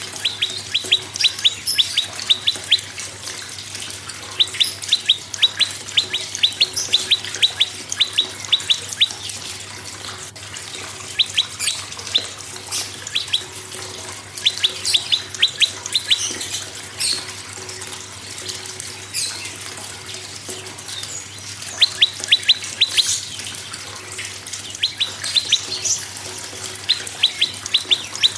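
Prenjak song: fast runs of sharp, high, downward-slurred notes, several a second, in bursts of a few seconds with short pauses between, and thinner, higher chirps in the gaps.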